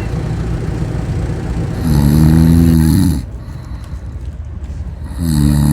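Cat snoring: one drawn-out, pitched snore about two seconds in lasting over a second, and the next one starting near the end.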